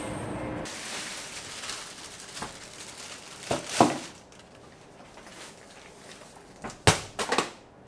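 A steady hum cuts off within the first second. Then come soft rustling and a few sharp crinkles and knocks from a plastic shopping bag and a pet stroller as things are taken out of the stroller.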